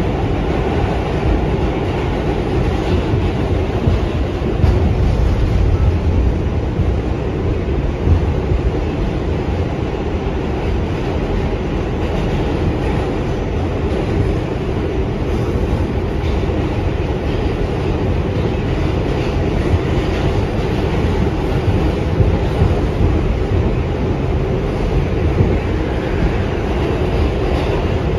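New York City subway train running, heard from inside the car: a steady din of wheels on rails and car noise.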